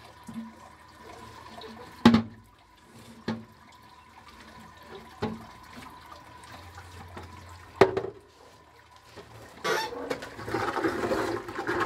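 Water running and splashing, with a few sharp knocks scattered through it; about ten seconds in, water starts gushing more loudly.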